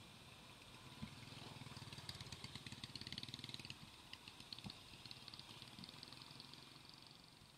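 Faint engine of a passing vehicle, growing louder and then fading away.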